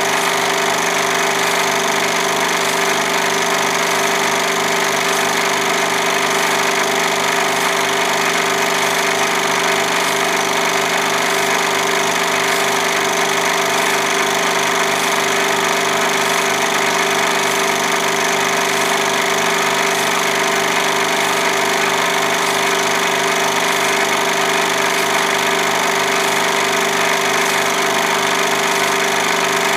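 Film projector running steadily: an even motor whir with a fast, regular clatter from the film mechanism.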